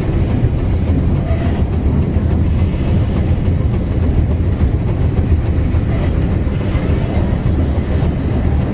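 Trolley car running on its rails: a steady, heavy low rumble.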